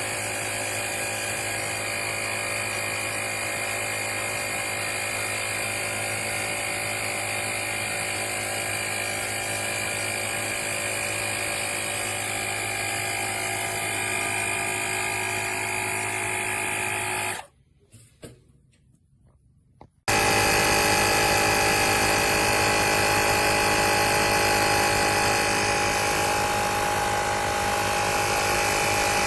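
Portable tire inflator's electric air compressor running steadily. It cuts out for about two seconds a little past the middle, then runs again slightly louder.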